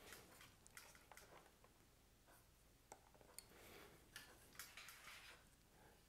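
Near silence: room tone, with a few faint clicks.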